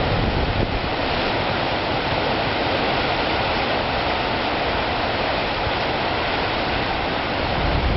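Large ocean waves breaking on rocks: a steady rush of churning surf.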